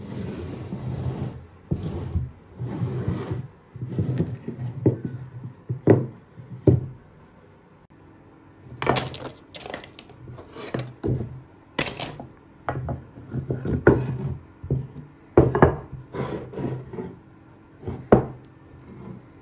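Sawn sycamore blocks and strips being slid, rubbed and set down on a wooden workbench, with irregular scraping and a series of sharp wooden knocks as the pieces hit the bench and each other.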